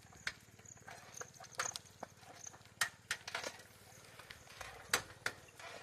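Irregular sharp clicks and knocks, a few a second at uneven spacing, with faint short high chirps in the first half.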